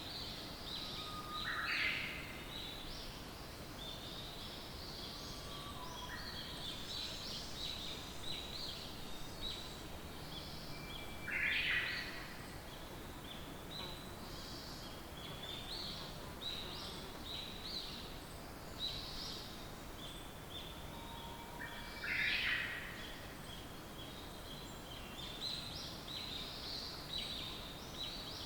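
Several songbirds chirping, with a steady run of short high chirps. Three times, about ten seconds apart, a louder, lower song sounds: a held note followed by a quick rising phrase.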